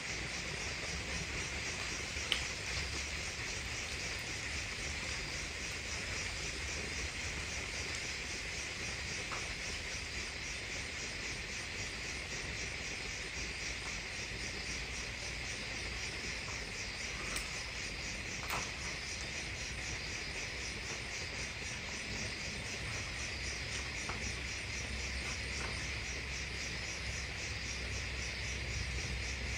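Night insects, crickets by the sound of it, chirping in a steady, pulsing chorus, with a couple of faint taps.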